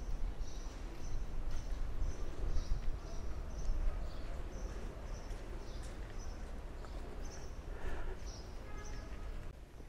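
Footsteps on stone paving with a steady low wind rumble on the microphone, and small birds chirping high and repeatedly over it.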